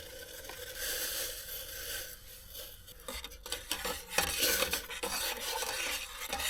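A utensil stirring and scraping around a small metal camp pot, with a few light clinks against the sides, as au jus mix is stirred into hot water.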